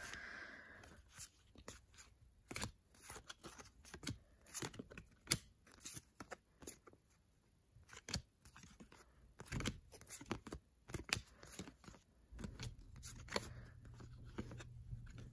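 A stack of baseball cards flipped through by hand, one card at a time: short, irregular flicks and slides of card stock.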